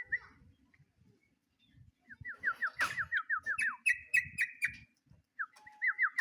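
Yellow-vented bulbul (trucuk) calling to a rival: fast runs of short, falling notes, several a second, starting about two seconds in, rising higher near the middle, and again near the end. A sharp click sounds about three seconds in.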